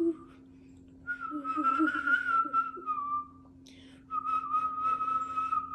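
A child whistling through pursed lips: two long, wavering notes at about the same pitch, the first dipping down at its end and the second starting about four seconds in. It is an unpractised, breathy whistle.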